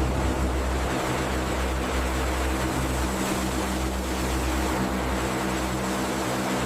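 Turboprop aircraft engines running: a steady roar with a deep rumble and a hum of several steady tones underneath.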